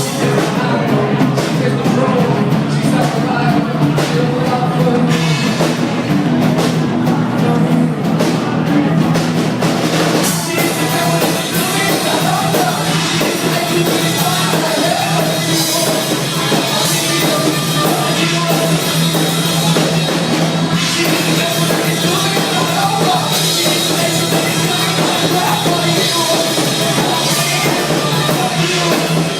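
A rock band playing a song with drum kit; the full band, cymbals included, comes in about ten seconds in over a sustained low note.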